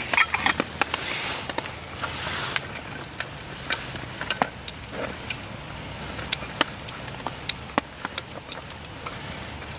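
Hot water poured over dehydrated lasagna to rehydrate it, rushing in bursts for the first two seconds or so, followed by scattered sharp ticks and taps.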